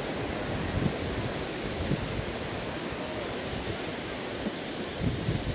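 Wind buffeting the microphone: a steady rushing noise with uneven low gusty rumbles.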